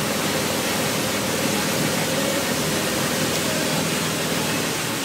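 Steady rushing noise of wind and the churning wake behind a motorboat under way, with the boat's engine running faintly underneath.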